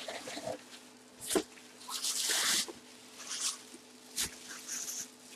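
Cardboard box and clear plastic bag rustling and crinkling in short bursts as a full-size football helmet is lifted out of its box. The longest, loudest crinkle comes about two seconds in, with a single dull knock a little after four seconds.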